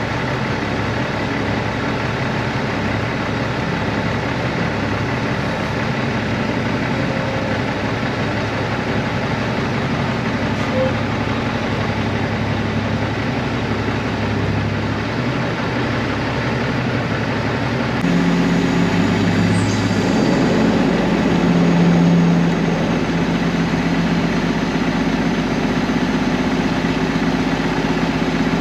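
Peterbilt semi truck's diesel engine running steadily. About eighteen seconds in, the note changes suddenly and gets a little louder.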